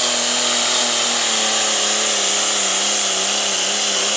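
Turbocharged diesel hot farm tractor engine at full power pulling the sled, loud and steady with its pitch wavering slightly and a strong high hiss over the engine note.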